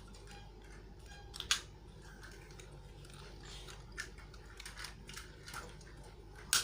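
Scattered sharp plastic clicks and light knocks from handling Robocar Poli transforming robot toys: a click about a second and a half in, another about four seconds in, a few small ones soon after, and the loudest near the end.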